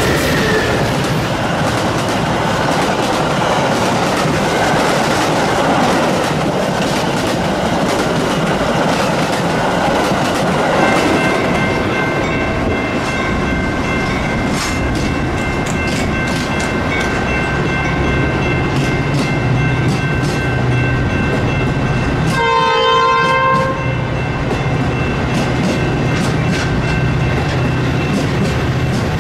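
Metra push-pull commuter train of bilevel cars passing close at speed: a steady rumble with the clickety-clack of wheels over rail joints. A train horn sounds through the middle, with a short, clear blast about three-quarters of the way through.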